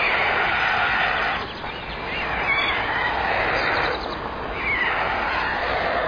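White stork chicks calling in the nest as they compete over food: three long, hoarse calls of about a second and a half each, each falling slightly in pitch.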